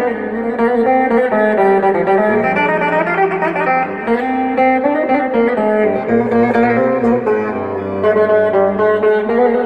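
Electric bağlama, a long-necked Turkish saz fitted with pickups, played through an amplifier: a continuous melody of quickly plucked, ringing notes.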